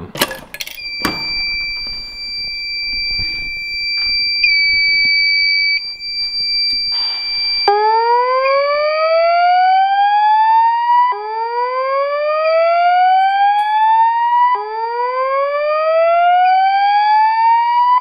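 An FCI MS-2L key-operated fire alarm pull station is pulled down with a sharp snap as its glass break rod breaks, and the system goes into alarm. A steady high-pitched electronic tone starts about a second in. From about eight seconds in, the voice-evacuation speaker strobe plays a rising whoop tone three times, each whoop about three and a half seconds long.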